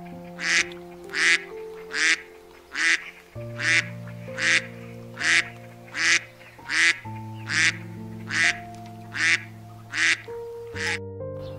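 Mallard duck quacking in a steady series of about fourteen loud quacks, a little under a second apart, over soft background music with long held notes.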